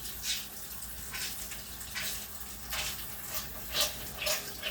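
Water running from a tap into a sink while hands are washed under it, with repeated short splashes.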